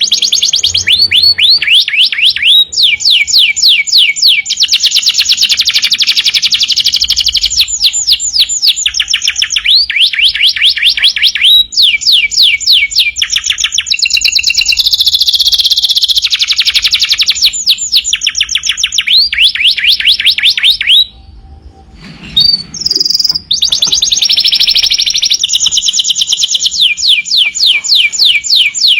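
Domestic canary singing loudly and continuously in long rapid trills of repeated chirping notes, mixed with some held whistled notes, with a brief pause about three-quarters of the way through before the song picks up again.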